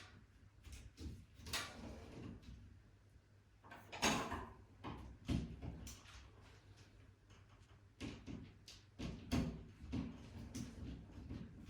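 Ratchet screwdriver driving a screw through a smoke alarm's base: irregular clicks, knocks and scrapes.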